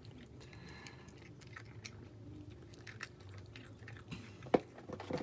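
A cat chewing treats taken from a hand: a run of small crisp clicks, with one sharper click about four and a half seconds in.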